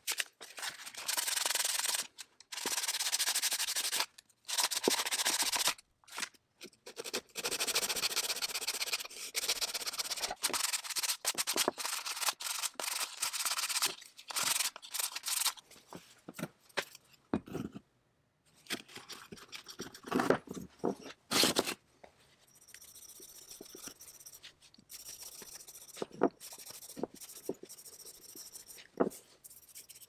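A rosewood tool handle being sanded by hand with abrasive paper: loud, repeated scraping strokes with short breaks. About two-thirds of the way through come a few sharp knocks from handling, followed by softer rubbing.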